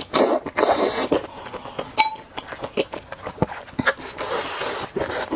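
Close-miked eating of noodle soup: noisy slurps near the start and again later, with wet chewing clicks in between and a brief clink about two seconds in.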